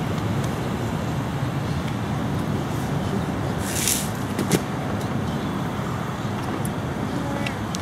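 Steady rumble of road traffic, with a short hiss a little under four seconds in and a sharp click just after it.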